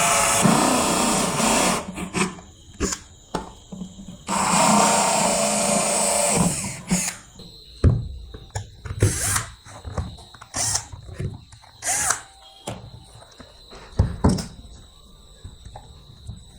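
A handheld power tool runs in two bursts of a few seconds each, then metal parts are knocked and set down in a string of separate clunks.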